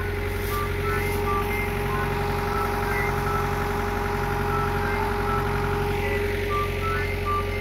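Excavator's diesel engine running steadily at idle, with short high beeping tones at shifting pitches sounding over it.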